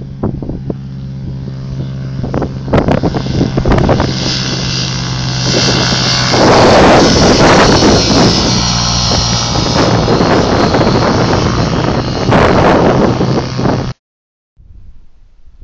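Ultralight aircraft's Rotax two-stroke engine droning steadily as it flies a low pass, growing louder through the middle, with wind buffeting the microphone. The sound cuts off abruptly near the end, leaving only faint outdoor noise.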